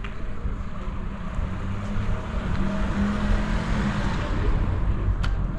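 A car passing close by on a cobbled street: engine hum and tyre noise swell to a peak about three to four seconds in, then fade.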